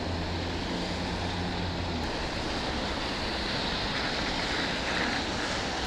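Steady rushing noise of wind and rain on the microphone while riding an e-bike through heavy rain. A low hum stops about two seconds in.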